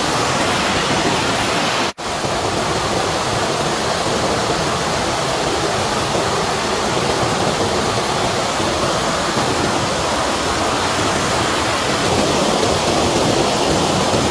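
Steady, loud rush of flowing water, cut off for a split second about two seconds in.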